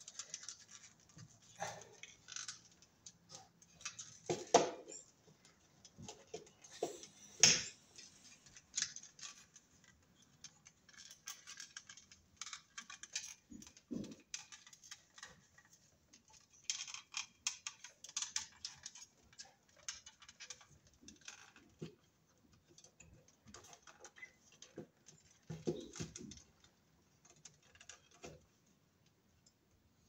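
Handling noise from a plastic electrical box and Romex cable: scattered clicks, scrapes and rustles as the cable is worked through the box's opening. There are two sharper knocks, about four and a half and seven and a half seconds in.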